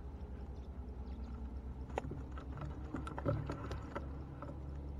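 Fishing net being hauled in by hand over the side of a small boat: water dripping and splashing off the net, with a few sharp clicks and knocks against the boat, about two seconds in and in a cluster a second later. A steady low rumble runs underneath.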